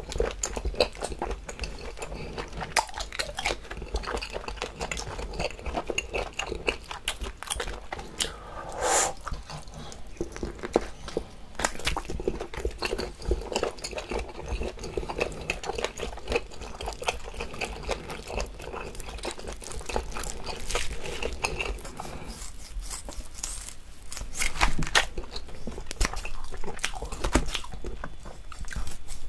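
Close-miked chewing of cooked octopus tentacle: a dense run of quick mouth clicks and smacks. Near the end, kitchen scissors snip through a tentacle.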